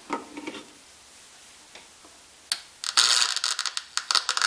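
AudioPrism noise sniffer's speaker making EMI and RFI interference on a household power line audible. A click about two and a half seconds in, then from about three seconds a loud, dense crackling buzz full of rapid rattling.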